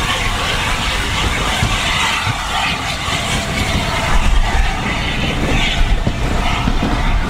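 Steam train under way, heard from a carriage window close behind its two locomotives, LNER A4 60007 Sir Nigel Gresley and BR Standard 70000 Britannia working double-headed. Steady running noise with a strong low rumble.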